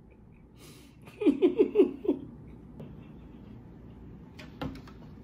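A woman laughing in about five quick bursts, each falling in pitch, about a second in, just after a short breathy intake. A single sharp click near the end.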